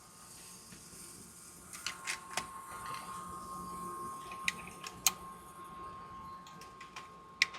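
An electric target carrier runs with a steady whine, bringing the target along its track, with several sharp clicks about 2, 4.5, 5 and 7.5 seconds in. No shot is fired.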